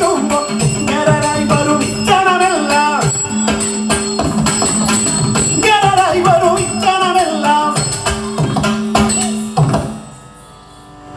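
Ottan Thullal accompaniment: a voice singing verses in wavering phrases over jingling cymbal strokes and drum beats, with a steady drone note underneath. The music falls away briefly near the end.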